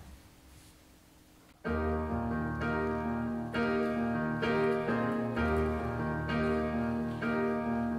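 Keyboard piano introduction: sustained chords struck about once a second, beginning after a near-silent pause of under two seconds.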